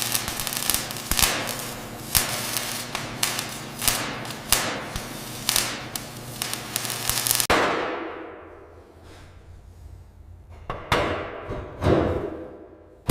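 A rapid, irregular run of sharp bangs and cracks over a steady humming drone, which cuts off suddenly about seven and a half seconds in. Then three separate heavy bangs, each dying away slowly.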